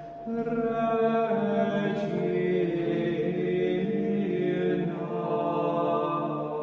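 Slow, chant-like sung music, its melody moving in long held notes.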